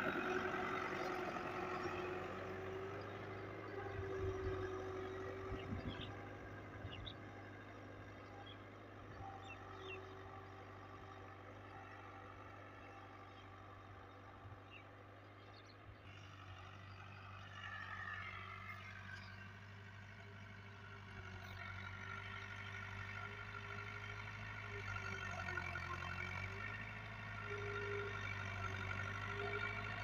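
A New Holland 640 tractor's diesel engine runs steadily under load while it pulls a tine cultivator through dry field soil. It fades as the tractor moves away to the far end of the field, then grows louder as it comes back toward the end.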